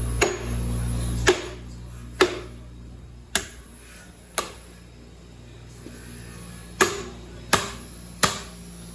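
A hammer striking metal on a small-block Chevy 350 engine during teardown: eight sharp blows, each with a short ring, with a pause of about two seconds midway. A steady low hum cuts off about a second in.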